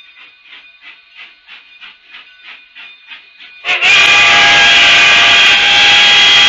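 Narrow-gauge passenger cars rolling by with a faint rhythmic clicking over the rail joints, about three clicks a second. About 3.7 s in, the steam whistle of K36 2-8-2 locomotive 487 starts a long, loud blast of several tones sounding together.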